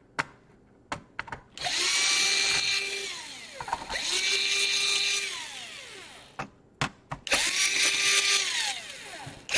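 Electric screwdriver backing out small laptop case screws, running in three short bursts. Each burst spins up, holds steady for about a second and winds down. There are a few light clicks between them.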